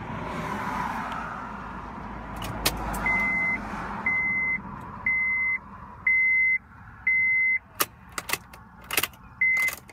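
Honda CR-V dashboard warning chime beeping five times, about once a second at one steady pitch, after the new key has switched the ignition on. Near the end come a short sixth beep and a few sharp clicks of the key in the ignition switch.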